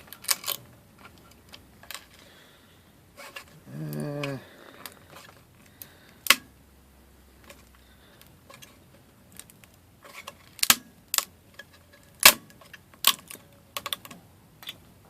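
Sharp, irregular clicks and snaps of PLA support towers being broken off a freshly finished 3D print, with quiet gaps between them. A brief low voiced sound from a person comes about four seconds in.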